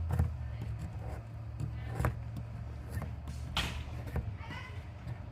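A digging tool scraping and chipping at the hard plaster block of a gemstone excavation kit, in irregular sharp scratches and knocks over a low steady hum.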